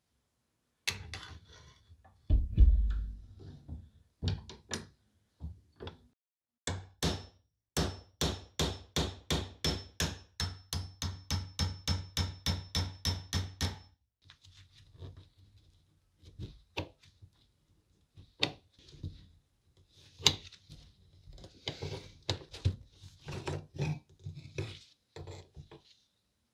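A hammer tapping a pin punch to drive out the hinge pin of a vintage APSCO Dandy pencil sharpener: a few single knocks and one heavy thunk, then a steady run of sharp metal taps at about four a second for some six seconds. After that come lighter, irregular metal clicks and scrapes as a thin steel rod is worked out of the sharpener's frame.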